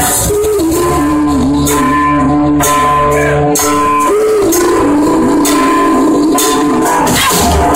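Live yacht rock band playing: electric and acoustic guitars, bass guitar and drums with hand percussion, over a held, wavering melody line. The low bass drops away about three and a half seconds in.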